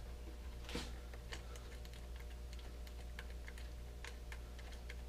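Light, irregular metallic clicks and ticks of an Allen wrench turning a seat clamp bolt out of a bicycle saddle clamp, over a steady low hum.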